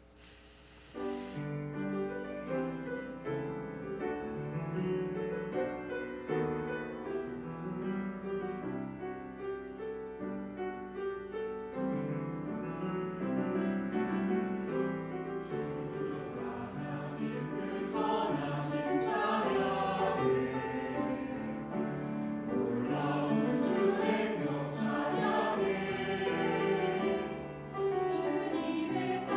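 Mixed church choir singing a sacred anthem with piano accompaniment. The music starts about a second in.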